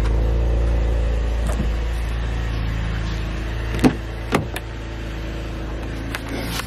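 A car running with a steady low rumble that slowly eases off, with two sharp clicks about four seconds in.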